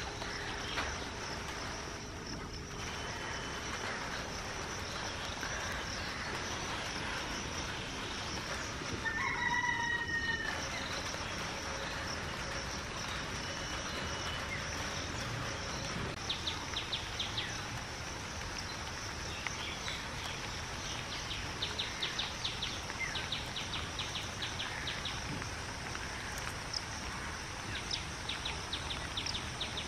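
A rooster crowing once, about nine seconds in. Under it runs a steady high-pitched hum, and in the second half come bursts of rapid, high chirping.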